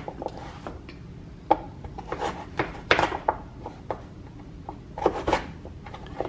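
Large kitchen knife cutting through hard raw sweet potato and striking a wooden cutting board: a handful of separate chops, a second or two apart.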